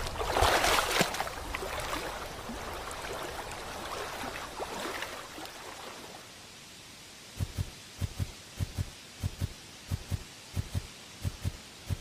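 Cartoon sound effects: a splash, then running water as the crocodile slides into the river. From about seven seconds in come regular low, heavy thuds, often in pairs: the giraffe's footsteps as it walks in.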